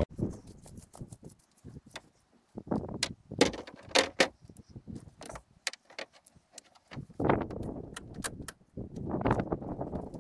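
Sharp clicks, taps and light metallic rattles of gear being handled in a pickup truck bed close to the microphone, coming in irregular clusters with a few louder clatters.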